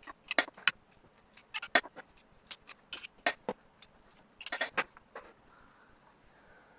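Irregular sharp clicks and knocks of kitchen utensils, in small clusters, as garlic cloves are crushed and added to a slow cooker.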